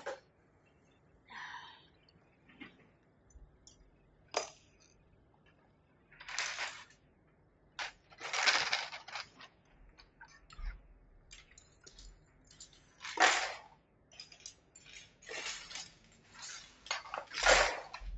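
Loose plastic keycaps and packaging being gathered up: irregular small clicks and clatter mixed with short bursts of rustling.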